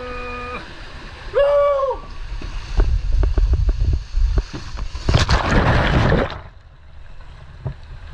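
A person rides a tube water slide: a short whoop, then bumping and rumbling in the tube, then a loud splash into the sea about five seconds in, followed by muffled water sounds.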